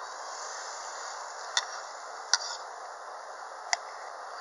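Metal grill tongs clicking three times, short sharp ticks spread over a few seconds, as raw chicken is laid on a charcoal grill grate. A steady faint hiss runs underneath.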